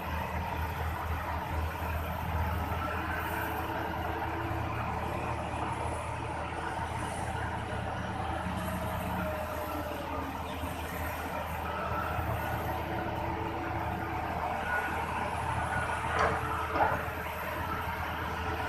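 Diesel engines of a BEML hydraulic excavator and a rear dump truck running steadily while the excavator loads coal into the truck. Two sharp knocks come near the end.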